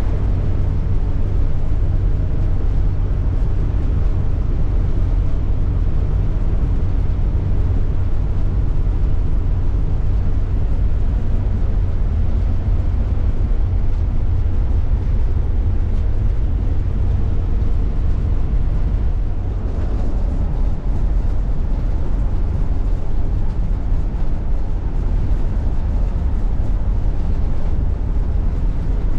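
Steady low rumble inside the cab of a motorhome driving at highway speed: engine, tyre and wind noise, with a slight change in the sound about two-thirds of the way through.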